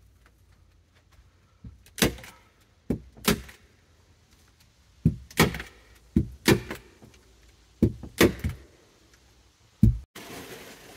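A series of irregular knocks and thuds on wood, about a dozen sharp strikes coming in pairs and threes over several seconds, from someone handling or moving about on a wooden box blind.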